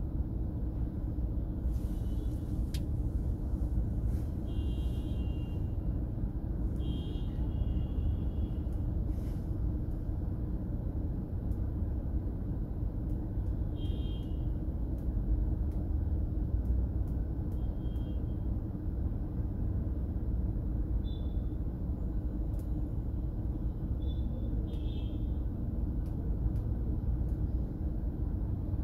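Steady low road rumble from a vehicle moving through city traffic, broken about eight times at irregular intervals by short, high-pitched horn honks.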